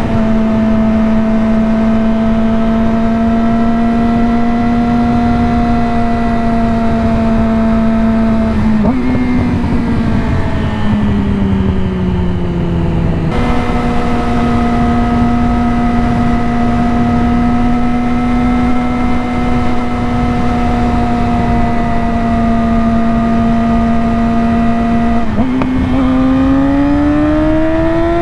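2020 Yamaha R6 inline-four with an M4 slip-on exhaust and cat delete, running at steady revs while riding; the revs flick up and then fall away for a few seconds around the middle, jump back up to a steady note, and climb again near the end as the bike accelerates. Steady wind noise lies under it.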